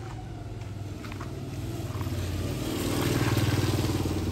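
A motor vehicle's engine running close by, a steady low hum that grows louder to about three seconds in, then eases slightly.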